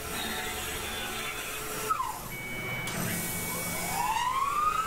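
Tormach PCNC 1100 CNC mill cutting aluminium with an end mill, a steady machining hum. About two seconds in the spindle motor winds down with a falling whine, and from about three seconds in it spins up again with a steadily rising whine.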